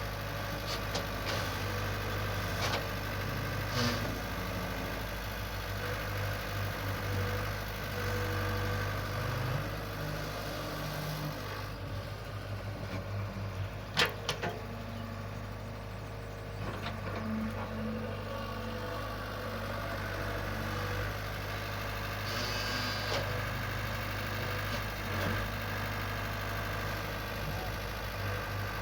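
Large hydraulic excavator's diesel engine running steadily, with a few short knocks, one sharp one about halfway through.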